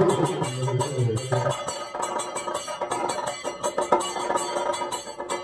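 Live Kathakali accompaniment: a low male voice holds sung notes for about the first second and a half, then a quick, steady run of percussion strokes carries on.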